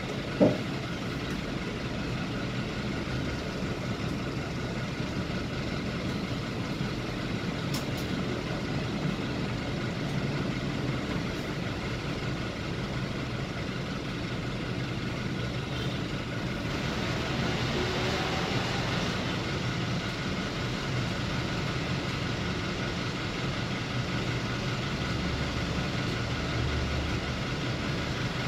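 Scania K320 IA articulated city bus's engine idling steadily, heard from the driver's cab, with the noise of surrounding traffic. A short knock sounds about half a second in.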